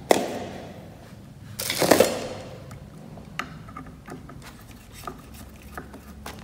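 Handling noise of a ceiling fan's plastic cover and parts: a sharp click at the start, a louder scraping rustle about two seconds in, then small scattered clicks and taps.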